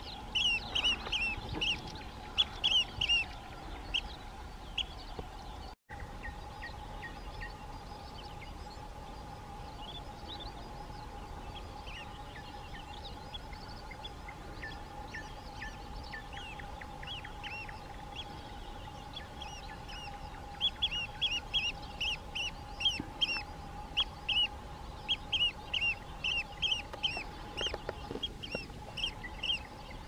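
Eurasian oystercatchers giving loud, sharp piping calls in quick runs, at the start and again from about twenty seconds in, with fainter calls between. A steady hum runs underneath.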